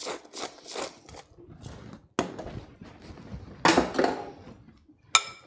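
A hand pepper mill grinding in short twisting rasps over a bowl. After it come kitchen-counter handling sounds: a knock about two seconds in, a louder scraping clatter a little later, and a sharp click with a brief ring near the end.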